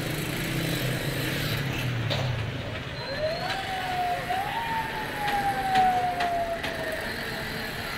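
Street traffic: a vehicle engine rumbles past, then a single pitched tone glides up and slowly falls away over about three seconds. A few sharp clicks sound along the way.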